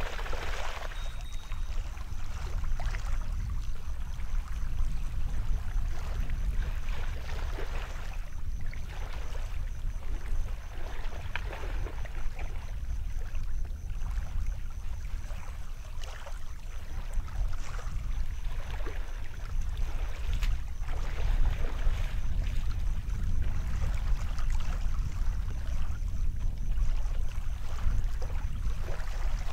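Water splashing and sloshing in the shallows as a person wades and works a landing net, with irregular splashes over a steady low rumble.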